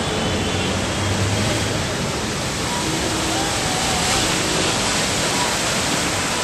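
Steady, dense rushing noise of heavy rain and running floodwater on a flooded street.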